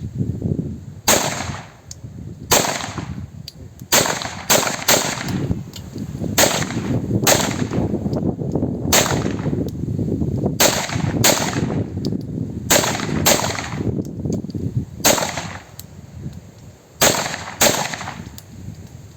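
Handgun shots fired one at a time at an uneven pace, roughly one a second, with a steady low rumble underneath.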